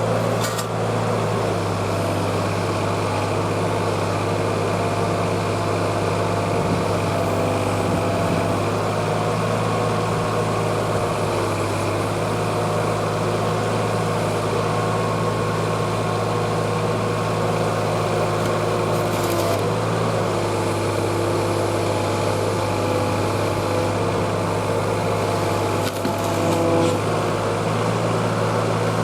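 Kobelco mini excavator's diesel engine running steadily while the hydraulics operate a newly fitted log grapple and rotator. Its note shifts a few times, about 9, 20 and 26 seconds in, as the hydraulic load changes.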